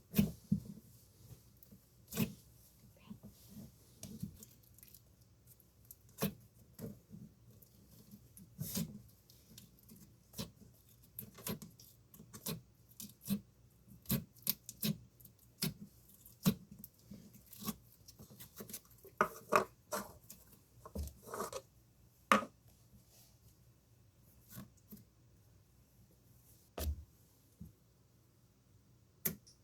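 Slime being squeezed and pressed by hand, making irregular sharp pops and clicks, with a few longer squelches about twenty seconds in.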